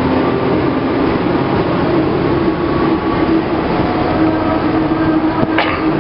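Hong Kong double-decker tram running along the street, heard from the upper deck: a steady rumble of wheels on rails under an even motor hum, with a short sharper noise about five and a half seconds in.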